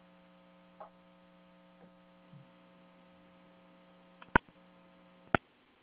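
Faint steady electrical hum with several overtones on the open audio line. Near the end it is broken by two sharp clicks about a second apart, and the hum cuts off at the second click.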